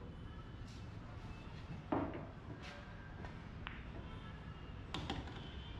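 A few sharp clicks of pool balls and cue on a pool table, the loudest about two seconds in and another near the end, over a low steady background hum.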